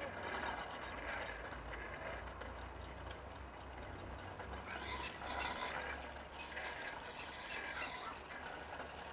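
Homemade rail bike rolling along railway rails: a steady mechanical rattle with a low rumble underneath, busier for a moment about five seconds in.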